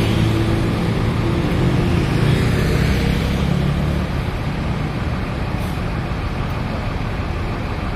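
Bus engine running close by, with a low hum that is strongest for the first three seconds or so and then fades into the traffic rumble.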